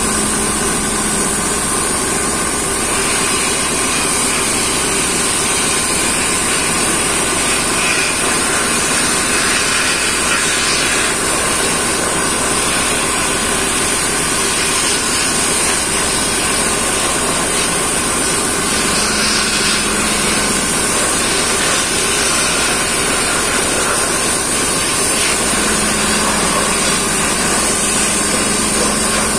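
Continuous hiss of a dry abrasive sandblasting gun blasting an aluminium BSA motorcycle crankcase inside a blast cabinet, steady throughout, over a steady machine hum. This is the pre-clean before vapour blasting.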